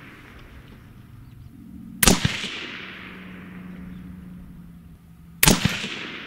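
Two shots from a suppressed AR-15 in .223 Wylde, about three and a half seconds apart. Each crack is followed at once by a second short crack and a long fading echo.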